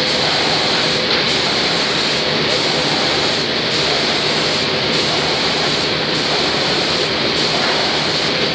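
Automatic door-spraying machine running: a steady, loud rushing hiss of air and paint spray, its highest hiss cutting out briefly about once a second in an even rhythm.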